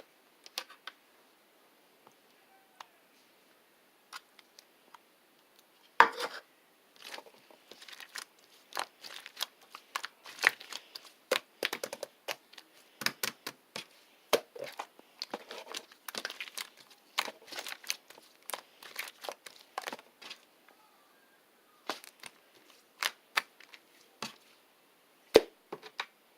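Slime being squeezed and stretched by hand, giving sharp popping and crackling clicks, sparse at first, dense and busy from about six seconds in, then thinning out near the end.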